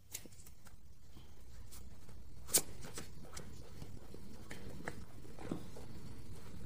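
Faint scattered clicks and soft taps from hands handling a tarot deck and cards on a cloth-covered table, over a low steady room hum; the sharpest click comes about two and a half seconds in.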